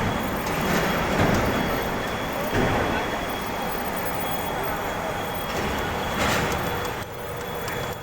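Steady machinery noise with a thin, high whine running through it.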